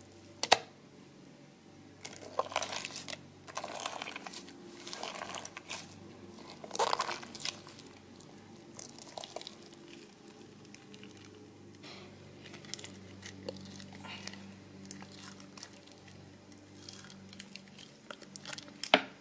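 Slime being squished and poked by hand, giving soft, irregular crackling pops, over a faint steady low hum.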